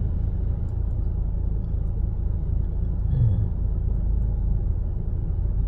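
Vehicle engine running under way, a steady low rumble, with a brief short voice sound about three seconds in.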